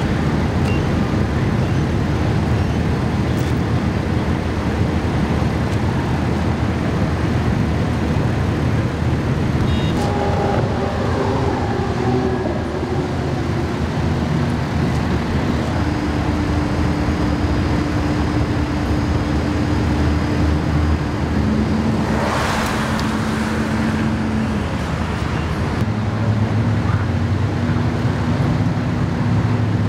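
Steady low rumble of idling fire-truck diesel engines, with a few hums that shift pitch now and then. About two-thirds of the way through, a rush of noise from a passing vehicle swells and fades.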